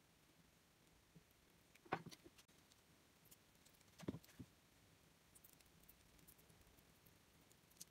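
Near silence with faint handling sounds: two light knocks, about two and four seconds in, and a few small clicks as a wooden knife-handle scale and blade are handled on a workbench.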